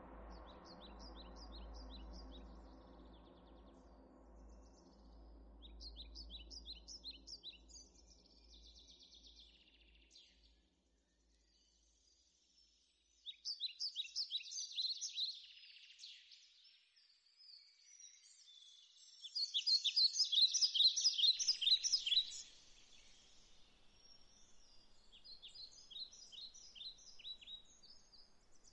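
Songbirds singing in phrases of rapid, high chirping trills, several times over, loudest about two-thirds of the way through. A soft, low sustained musical drone fades out over the first ten seconds or so.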